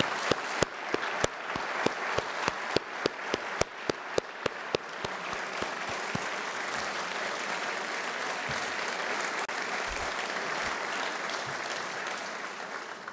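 Audience applauding, with loud sharp claps from one close clapper about twice a second for the first five seconds over the steady applause, which fades out near the end.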